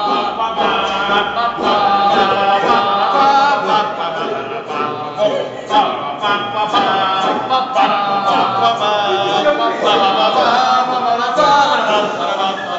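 A small group of men singing together unaccompanied.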